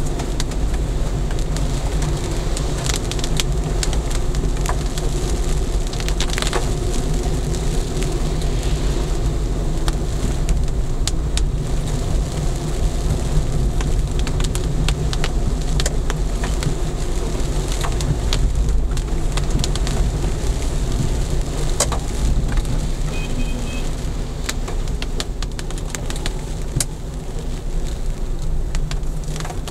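Inside a car driving in rain, heard through a dashcam's built-in microphone: a steady low road and engine rumble with many raindrops ticking on the roof and windshield.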